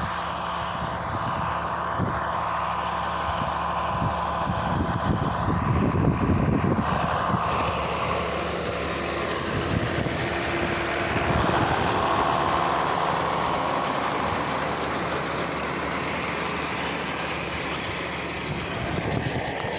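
Farm tractor's engine running steadily as it pulls a John Deere 530 round baler down a hay windrow, swelling and easing a little but never stopping.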